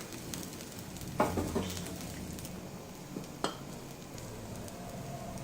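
Moong dal chilla batter sizzling gently on a tawa over a low flame, with a quick cluster of utensil clacks against the pan about a second in and one more clack a couple of seconds later.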